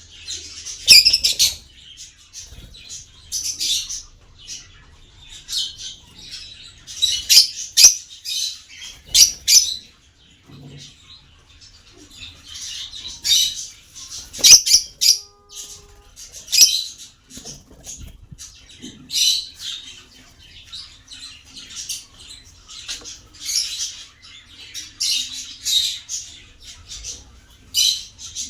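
Small pet parrots chattering: shrill, high-pitched chirps and squawks in irregular clusters, one every second or two.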